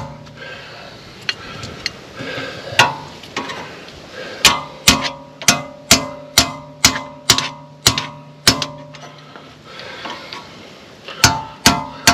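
Hammer striking a long steel bar hooked into the axle seal of a Ford 8.8 rear axle housing, working the old seal out. The blows ring sharply like metal. A few come scattered at first, then a steady run of about two and a half a second, a pause of a couple of seconds, and another run near the end.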